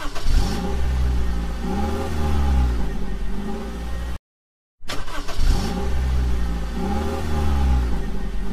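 Car engine revving sound effect: an engine revs up and down with rising and falling pitch, cuts off abruptly just after four seconds, and the same revving clip starts again about half a second later.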